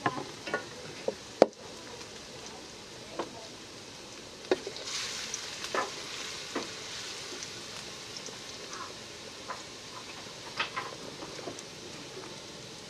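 Minced garlic sizzling in hot oil in a stainless-steel wok as it is stirred with a wooden spatula, with scattered sharp clicks; the sizzle briefly grows brighter about five seconds in.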